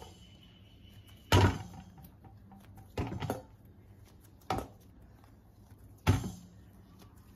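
Lumps of soft maida dough pinched off and dropped one at a time into a stainless steel bowl: four sharp thuds against the metal, about a second and a half apart.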